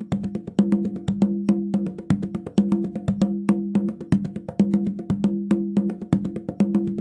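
A pitched drum struck in a fast, uneven flurry of strokes, with a lower and a higher tone ringing under the hits.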